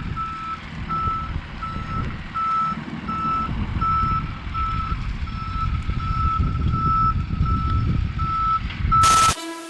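Truck backing up: its reversing alarm beeps at an even pace, about three beeps every two seconds, over the low rumble of its engine. Near the end a brief loud burst of noise cuts in, and brass music begins.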